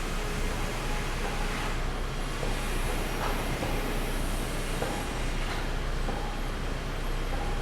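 Sawmill machinery running steadily, a dense mechanical din with a few faint knocks scattered through it.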